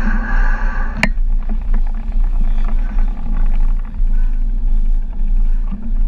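Steady low wind rumble on a body-worn camera's microphone while walking, with a single sharp click about a second in.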